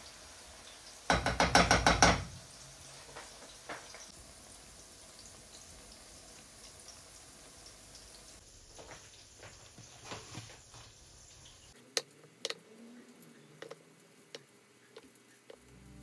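Cubed aubergine frying in oil, a faint steady sizzle. About a second in, a quick rattling run of metal clatter from the metal spatula against the pan, the loudest sound; a few single sharp clicks follow near the end.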